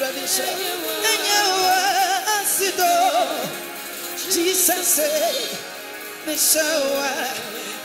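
Live gospel music: a male vocalist singing with vibrato through a microphone and PA over band accompaniment.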